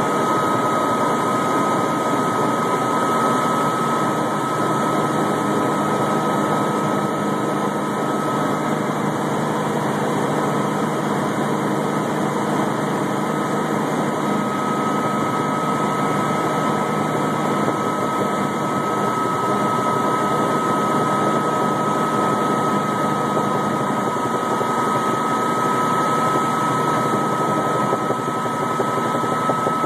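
Helicopter in flight, heard from on board: steady engine and rotor noise with a constant high whine over it.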